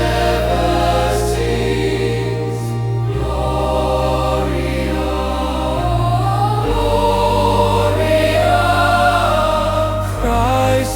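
Choral music: a choir sings wordless sustained vowels over held low bass notes that change every few seconds.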